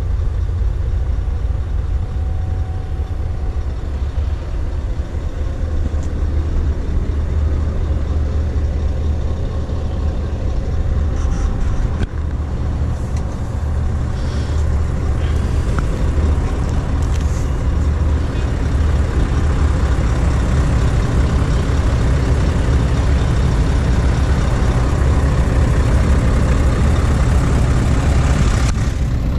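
Scania S650's V8 diesel engine idling steadily, a deep even hum heard from inside the cab, with a few brief clicks around the middle.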